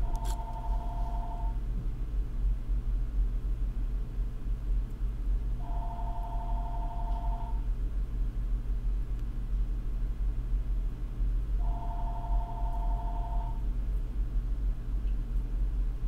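A steady low hum, with an electronic two-tone beep lasting about a second and a half that repeats roughly every six seconds, three times.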